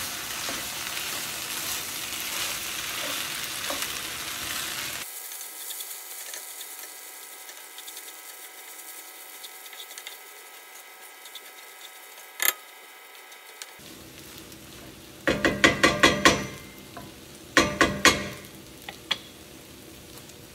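Cheesy spaetzle being stirred in a pan: a sizzle for about the first five seconds, then quieter stirring. A single click about midway, and two quick runs of a utensil clattering against the pan near the end.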